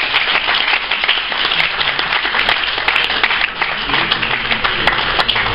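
Audience applauding steadily: a dense, even patter of many hands clapping.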